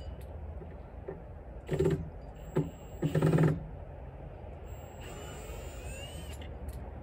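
Cordless electric screwdriver whirring in three short bursts about two and three seconds in, the last the longest and loudest, over a steady low rumble.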